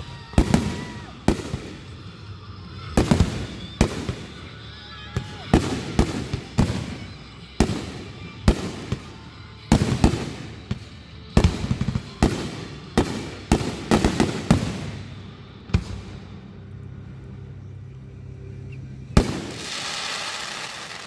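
Aerial fireworks bursting in a rapid, irregular barrage of booms, some with a crackling tail. The barrage thins out after about 15 seconds, and one last boom near the end is followed by a couple of seconds of dense hissing crackle.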